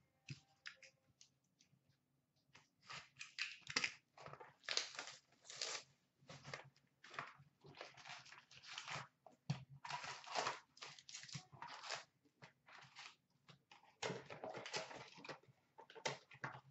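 Plastic wrap being torn off a box of Upper Deck hockey cards and the foil card packs inside crinkling as they are pulled out and stacked: an irregular run of crackling, tearing rustles that starts about two seconds in.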